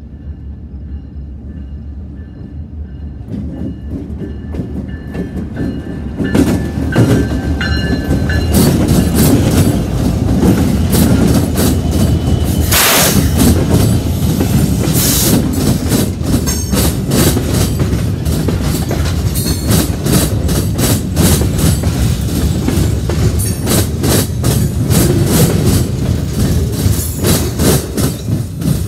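CP local freight train led by an EMD GP38-2 diesel locomotive: the locomotive rumble grows as it comes up and passes close by. Then comes a long run of wheel clicks and clanks as the freight cars roll past, loudest a little before halfway. The sound falls away near the end as the last car clears.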